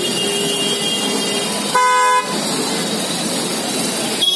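A vehicle horn gives one short toot about two seconds in, over steady busy-street noise.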